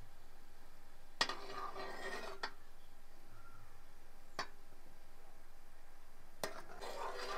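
A spoon stirring and scraping in a cooking pan, with sharp knocks against the pan. The scraping comes in two spells, about a second in and again near the end. The brahmi, jaggery and coconut-milk mixture is being cooked down to a thick paste.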